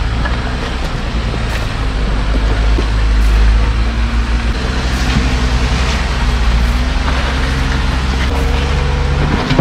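Jeep Wrangler Rubicon's engine running steadily at low revs as the Jeep crawls up a rock slab, with a strong low rumble.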